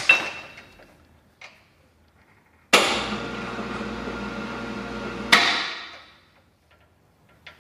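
Electric motor of a motorized bike lift running for about three seconds to pay out its lift cable, starting abruptly and stopping with a sharp clack. A single metal knock sounds right at the start.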